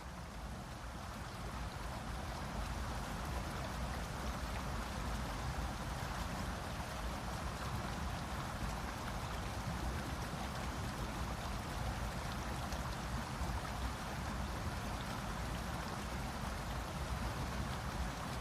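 Steady rushing water that fades up over the first couple of seconds, then holds even.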